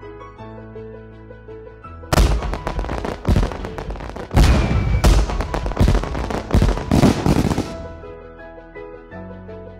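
Firework explosion sound effect: a string of loud bangs with crackling between them, starting suddenly about two seconds in and dying away about eight seconds in, over light keyboard background music.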